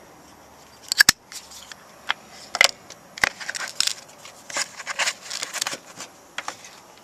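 Zippo lighters being handled in their case: a run of sharp clicks and clacks of metal and plastic, loudest about a second in.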